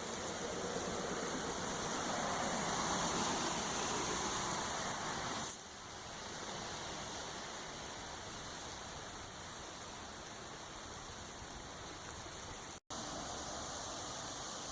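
Steady rush of a creek in flood, louder over the first few seconds. A sharp click about five and a half seconds in and a brief dropout near the end break the sound.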